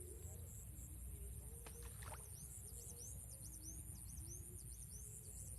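Faint outdoor ambience: a steady low rumble and a high pulsing hiss, with a bird chirping quickly, about three short chirps a second, through the second half.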